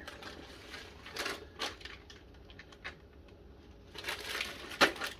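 Snack packages being handled: plastic wrappers and bags rustling and crinkling, with a few light knocks and one sharp tap near the end.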